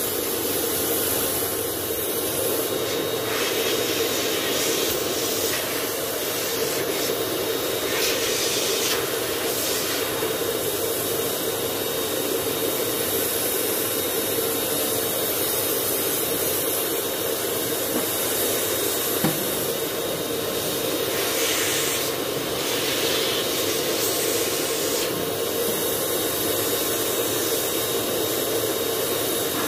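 Handheld electric spray gun running steadily as it mists cooking oil over a smoker's metal grates to season them. A motor drone with airy hiss, the hiss growing brighter in several short stretches.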